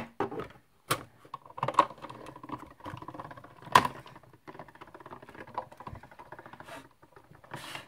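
Clear plastic cutting plates and a metal cutting die clicking and knocking as they are handled and fed into a hand-cranked die-cutting machine, with three sharper knocks in the first four seconds. Then a run of light, quick ticks as the plates go through the machine.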